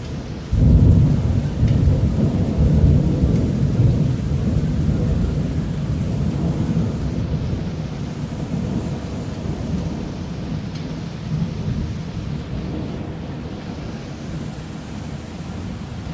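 Thunder during a heavy thunderstorm: a loud low rumble breaks in suddenly about half a second in, rolls on for several seconds and slowly fades, over the steady hiss of rain.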